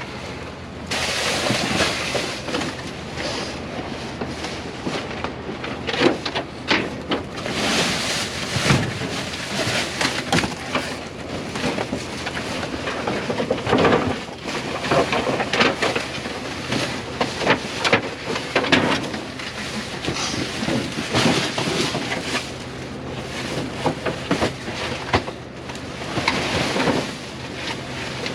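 Rummaging through a dumpster's contents: rustling and clattering of handled bags and items, with irregular knocks and bangs.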